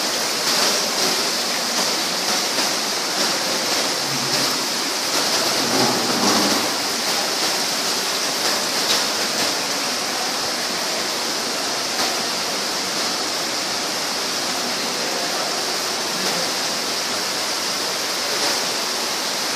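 Water running from many taps and splashing onto a heap of aluminium pots and pans: a steady, unbroken hissing splash.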